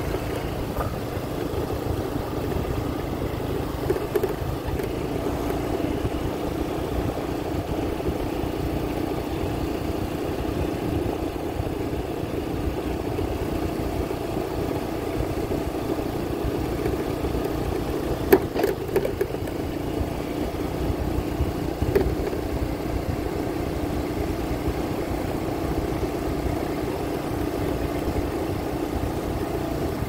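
Small motorbike engine running steadily while being ridden at low speed, with a steady hum and a low rumble. A few sharp knocks sound a little past halfway.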